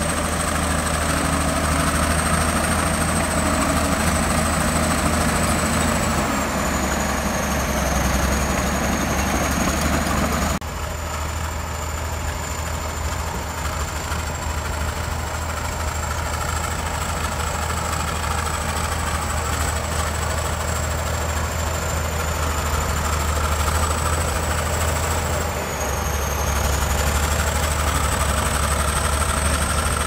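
Shantui SD22 crawler bulldozer's diesel engine running steadily as the dozer pushes dirt. A high whine above the engine dips in pitch twice, and the sound changes abruptly about ten seconds in.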